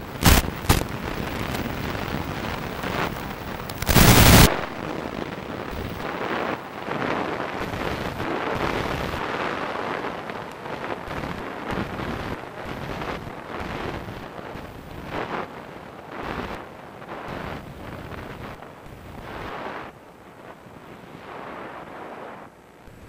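Wind rushing past a small foam RC plane's onboard microphone as it glides in low, broken by two loud crackling bursts, one just after the start and one about four seconds in. The noise grows quieter near the end as the plane slows for landing.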